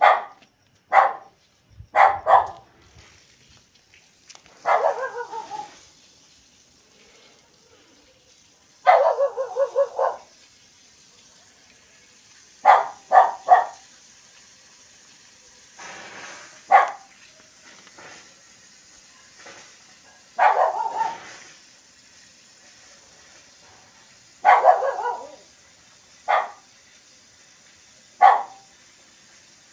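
A dog barking in short, sharp barks, singly and in quick runs of two or three, at irregular gaps, with a few longer drawn-out barks about five and nine seconds in.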